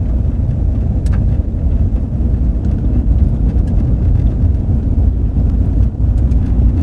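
Steady low rumble of a car driving on a gravel road, heard from inside the cabin, with one brief click about a second in.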